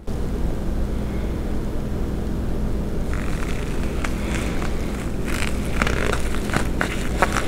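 A steady low hum, and from about three seconds in, a swab scrubbing over the stamped metal of a shotgun part: scratchy rubbing with many small clicks, busier toward the end.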